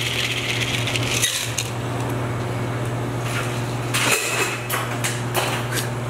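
A shaken cocktail is strained from a metal shaker into a highball glass over ice, the pour hissing for about the first second. Then come the clinks and clatter of the shaker and glassware being handled, mostly about four to six seconds in, over a steady low hum.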